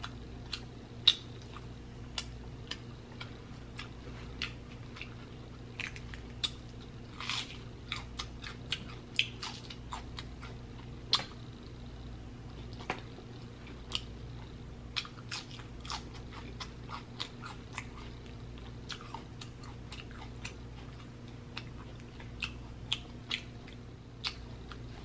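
Close-miked eating of sticky barbecue-sauced beef rib meat: chewing, with frequent wet smacks and sharp clicks of lips and saucy fingers, scattered unevenly.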